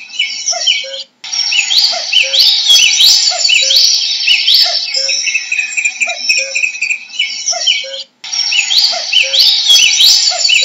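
Common cuckoo giving its repeated low two-note call beneath a louder, dense chorus of high-pitched songbird chirps and rising trills. The recording cuts out briefly about a second in and again near eight seconds, where the same stretch of birdsong starts over.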